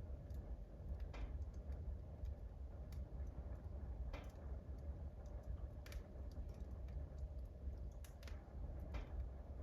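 Wood fire in a wood burner crackling, with irregular sharp pops, the clearest a little after 1 s, just after 4 s, near 6 s, around 8 s and at 9 s, over a low steady rumble.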